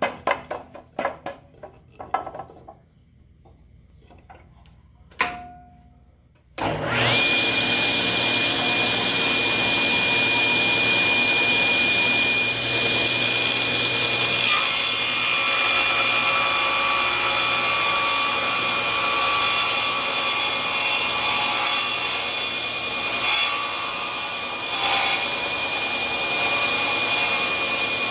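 A few light clicks and knocks, then a table saw switches on about six seconds in, spins up and runs steadily with a high whine. Partway through, the sound shifts as the blade cuts a wedge slot into the end of the wooden handle.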